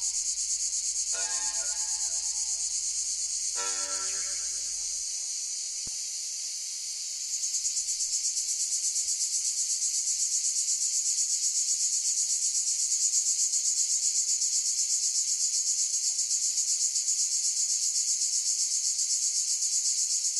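Cicadas singing in a steady high buzz with a fast pulsing, dipping slightly about five seconds in and coming back louder about two seconds later. In the first five seconds, a couple of short, fading synthesizer notes sound over a low hum.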